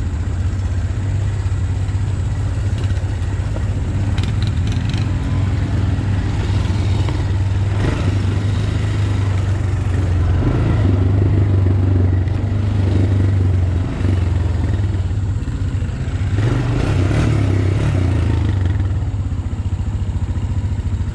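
Honda Recon 250 ATV's single-cylinder four-stroke engine running steadily at low trail speed over rough dirt, with scattered clatter and knocks as the machine rides over bumps.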